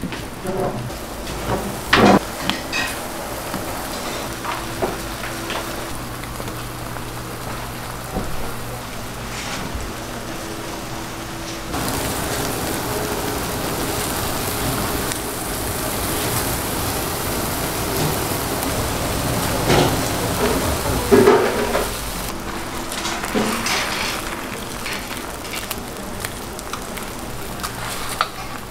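Slices of luncheon-meat ham sizzling on a hot oiled flat-top griddle, with a few sharp knocks as the slices are handled. The sizzle grows louder about twelve seconds in, then eases off about ten seconds later.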